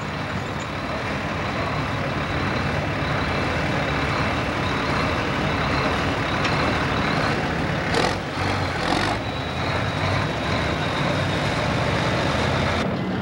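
A John Deere farm tractor's engine running hard under full load as it drags a weight-transfer pulling sled, a steady heavy drone throughout. A few short knocks or clatter come about eight to nine seconds in.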